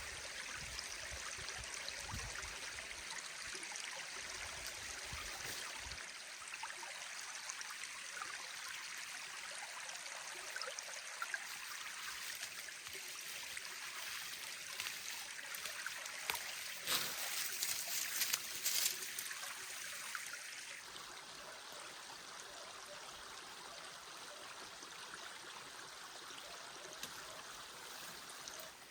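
Mountain stream running steadily over stones. A few short, louder noises come through about seventeen to nineteen seconds in.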